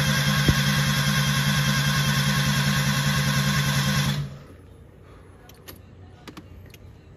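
Nissan Sentra engine being cranked by its starter motor, a steady rapid rhythmic churning, which stops abruptly about four seconds in without the engine catching. This is a no-start that the owner puts down to too little fuel. A few faint clicks follow.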